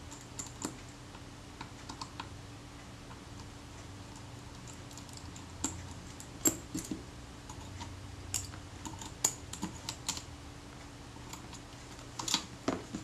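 Sparse, irregular small metal clicks and taps of a small screwdriver and parts on a Kodak Retina Reflex IV's top plate as the film advance lever is unscrewed and lifted off, with a few clicks close together near the end.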